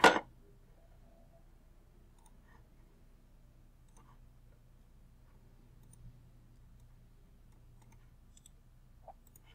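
A sharp computer mouse click, then a faint steady room hum with a few soft clicks.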